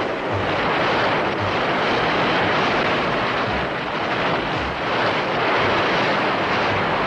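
A huge wave crashing and surging over a poolside: a dense, steady rush of churning water with faint low thuds here and there.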